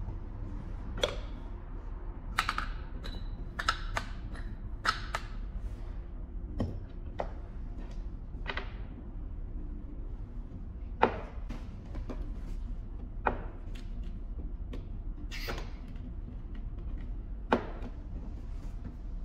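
A dozen or so sharp clicks and light knocks at irregular intervals as a graphite welding mould and its handle clamp are handled and set down on a tabletop, over a steady low hum.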